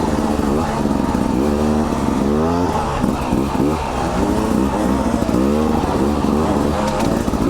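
Beta 300RR two-stroke enduro motorcycle being ridden, its engine revs rising and falling over and over.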